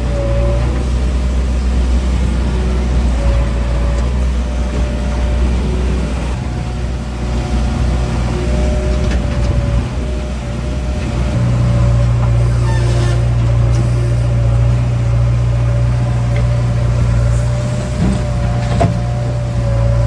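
JCB 3DX backhoe loader's diesel engine running under load, heard from inside the operator's cab, with a wavering high whine over the low drone. The engine note strengthens about halfway through.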